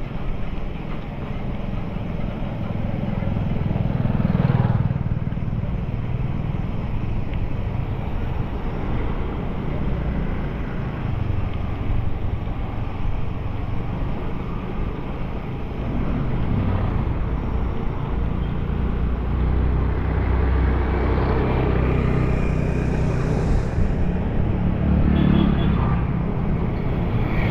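Wind buffeting the microphone while riding: a steady low rumble, with a faint pitched hum coming in for a few seconds near the end.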